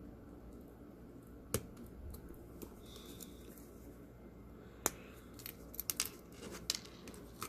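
Small hand tool clicking and snapping against a 1/64-scale diecast truck base as its wheels and axles are pried out: a couple of single sharp clicks, then a quick run of them about six seconds in.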